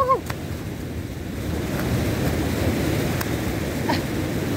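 Ocean surf washing onto a sandy beach in a steady rumble, with wind buffeting the microphone.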